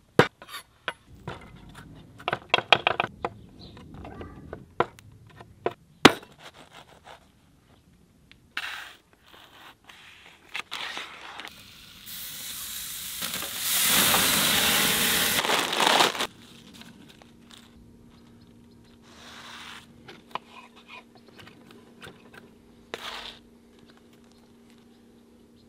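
Food-prep sounds of clicks, knocks and scrapes on a wooden cutting board, then a raw burger patty sizzling on a hot grill grate for about four seconds midway, the loudest part. A few more soft knocks follow over a faint steady hum.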